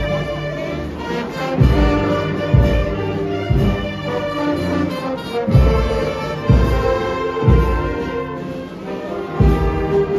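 Brass band playing a march, with a deep drum stroke about once a second under sustained horn notes.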